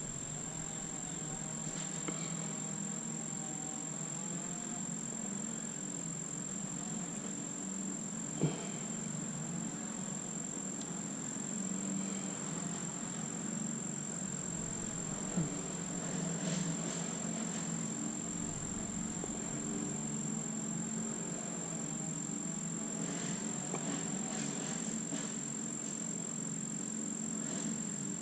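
Steady high-pitched insect chirring, with two light knocks about eight and fifteen seconds in.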